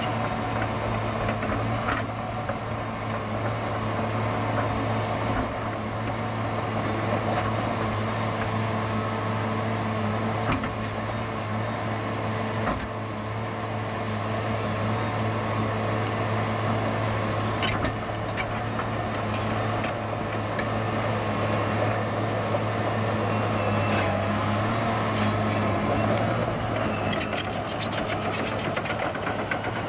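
Caterpillar 963C tracked loader's diesel engine running steadily as the machine pushes a full bucket of dirt, with a rapid clatter near the end as it comes close.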